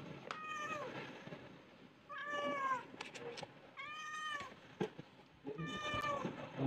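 A cat meowing four times, each call about half a second long and rising then falling in pitch.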